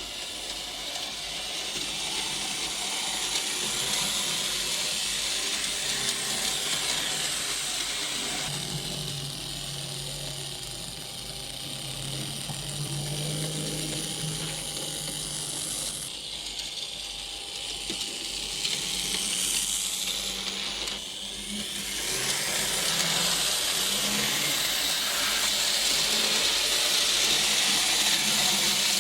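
Small electric motor of a model train locomotive running: a continuous whir with a low hum and a hiss, changing in pitch and level several times.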